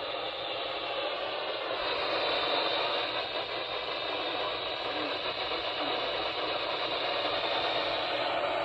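Weather radio receiver playing a broadcast through heavy, steady static hiss, with a faint voice reading the forecast under the noise.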